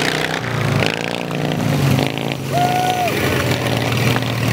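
Racing riding lawn mower engines running steadily, one passing close by. A brief high tone stands out about halfway through.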